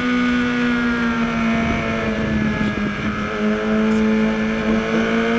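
2013 BMW HP4's inline-four engine running hard at high revs in second gear, heard from onboard over wind rush. The engine note sags slightly, then climbs gently again from about three seconds in.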